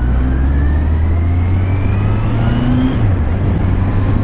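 2016 Kawasaki Z800's inline-four engine pulling away under acceleration: its pitch climbs steadily for about three seconds, drops at an upshift, then starts climbing again in the next gear.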